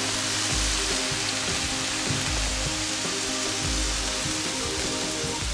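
Carne asada, chicken and al pastor sizzling on a hot Blackstone flat-top griddle, a steady hissing crackle like rain, under background music with a deep beat about every second and a half.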